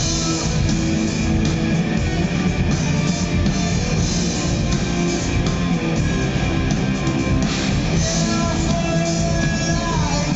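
Live rock band playing: electric guitar, electric bass and drum kit.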